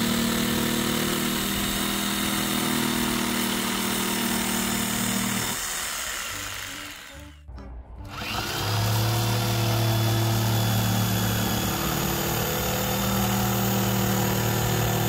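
Corded Stanley jigsaw cutting thin plywood, a steady buzzing run. It fades away about six seconds in and comes back about two seconds later.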